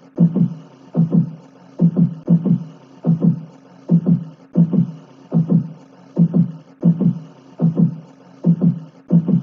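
Heartbeat-style pumping sound effect: pairs of low thumps, lub-dub, repeating evenly about every 0.8 seconds over a faint steady high hiss.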